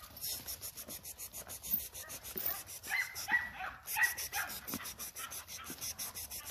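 American pit bull terrier hard at work chasing a flirt-pole lure: fast, rhythmic panting all through, with a couple of short high whines about three and four seconds in.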